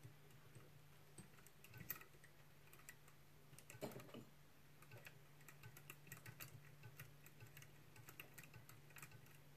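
Near silence with faint, irregular light clicks and ticks from hands working a rotary fly-tying vise as diamond braid is spun and wound onto the hook, over a low steady hum.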